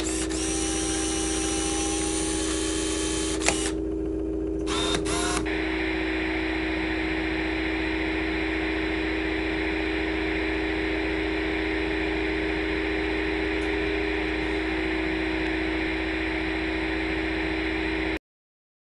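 Steady electrical hum and hiss, with a few sharp clicks in the first several seconds. The hiss thickens into a steady whirring about five seconds in, then everything cuts off abruptly near the end.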